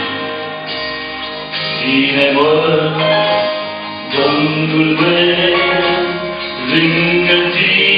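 A man singing a Romanian hymn solo into a handheld microphone over instrumental accompaniment. New sung phrases come in about one and a half, four and nearly seven seconds in.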